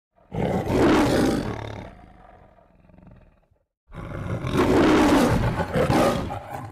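A lion roaring twice, two long roars with a brief silence between them; the second starts about four seconds in.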